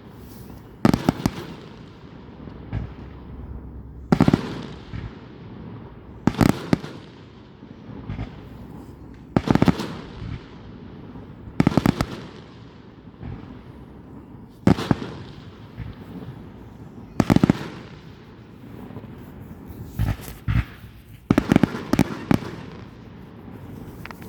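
Fireworks going off: a series of loud bangs, one burst every two to three seconds. Each burst is a quick cluster of sharp cracks that trails off, and near the end several bursts come close together.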